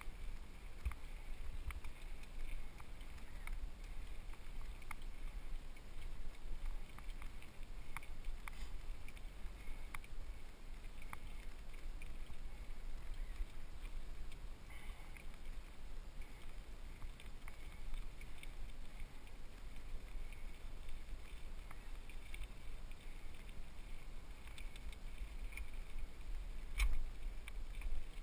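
Mountain bike riding over dirt singletrack, heard from a helmet-mounted GoPro HD: a steady low rumble of wind and tyre noise on the microphone with scattered clicks and rattles from the bike, and a sharper knock near the end.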